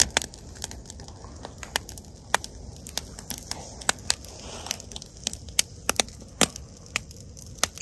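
Wood fire crackling: irregular sharp snaps, several a second, over a faint low hiss.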